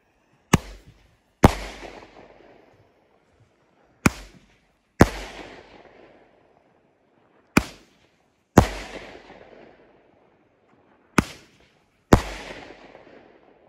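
Pyro King Hot & Wild Roman candle firing four shots about three and a half seconds apart. Each shot is a short pop as it leaves the tube, then about a second later a louder, hard break in the air with an echo fading away.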